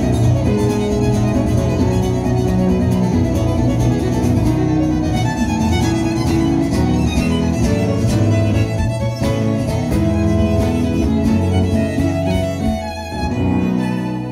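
Live Nordic folk music from a trio of fiddle, strummed cittern and stage piano, with the fiddle carrying the tune over the chords. The deep bass drops away about a second before the end.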